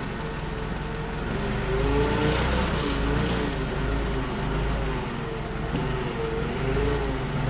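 Clark forklift running while it hoists an engine on chains, with a steady low rumble and an engine note that wavers up and down.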